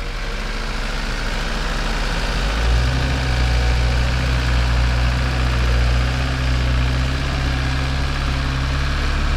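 An SUV engine working under load during a tow attempt to pull a stuck SUV out of snow. The engine steps up about two and a half seconds in and then holds a steady note.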